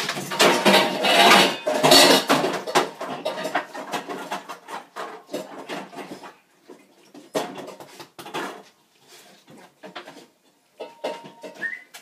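Dog bowls clattering and knocking against each other and the sink as a puppy licks them out: a dense run of clatter for the first couple of seconds, then sparser knocks that die away after about eight seconds.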